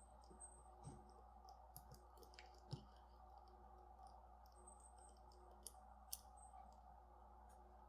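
Faint, scattered small clicks of a small screwdriver and metal parts as tight screws are slowly backed out of a zirconium haptic coin fidget toy. The sharpest clicks come a little under three seconds in and about six seconds in.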